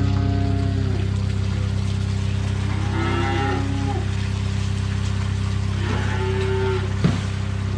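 Calves mooing, one call about every three seconds, over a steady low hum, with a short knock near the end.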